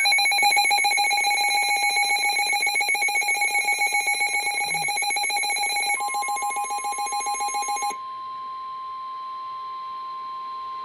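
Emergency alert tones: a rapidly pulsing, ringing electronic alarm of several pitches, joined about six seconds in by a single steady tone that carries on alone after the pulsing stops about two seconds later. The tones introduce a severe thunderstorm warning.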